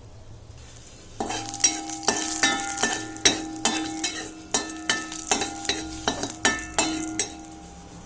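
Tempering spices (mustard seeds, urad dal, dried red chillies, asafoetida) sizzling in hot sesame oil in a metal pan, starting about a second in, while a metal spoon stirs and knocks against the pan with ringing clinks about two or three times a second.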